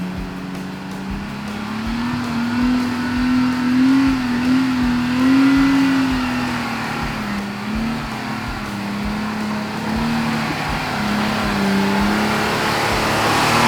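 Four-wheel drive's engine revving as it climbs a steep, slippery dirt hill. The pitch rises and falls with the throttle, and the sound grows louder near the end as the vehicle approaches.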